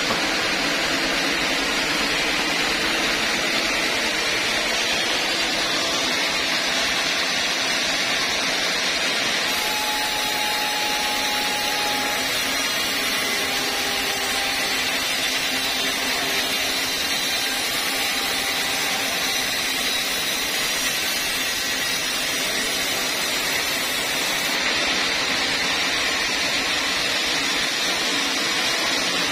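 Log band saw running steadily as its blade rips lengthwise through an old teak log on the sawmill carriage.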